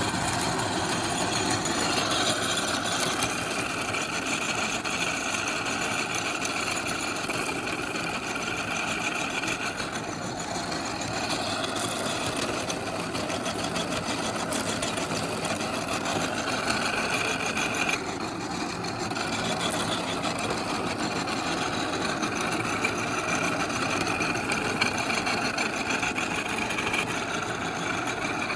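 Electric meat grinder's motor running steadily at an even level.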